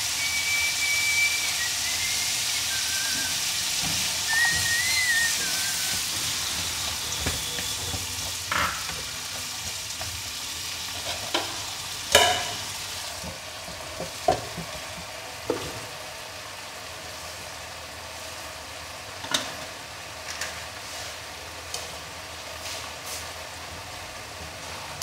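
Sliced bamboo shoots and bitter herb sizzling as they stir-fry in a pan, with a spatula clacking against the pan now and then. The sizzle is strongest for the first few seconds and then eases off.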